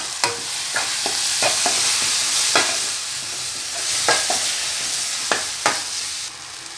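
Prawns, tomatoes and spice masala sizzling in hot oil in a metal kadai while a metal spatula stirs them, its strokes clicking and scraping against the pan about ten times. The sizzle falls off sharply near the end.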